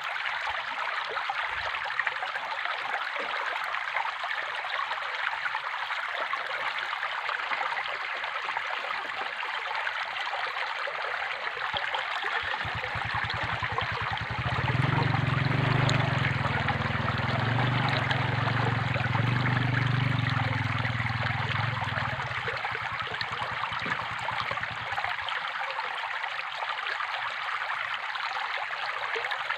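Flowing water trickling and splashing steadily, like a small stream. About halfway through a low hum swells in for roughly ten seconds, then fades away.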